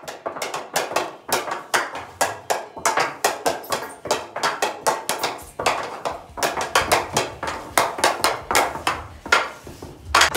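Hockey stick blade tapping a golf ball back and forth in rapid stickhandling: quick, sharp clicks, several a second, in an uneven rhythm.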